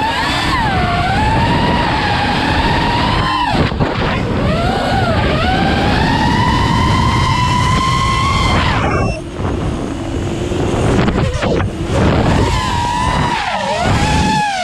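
Brushless motors and propellers of a 5-inch FPV freestyle quadcopter, recorded onboard, whining in pitch that rises and falls with throttle over wind rush. The pitch dips sharply about 4 s in. From about 9 s it drops low for a few seconds, as if throttled back, before climbing again.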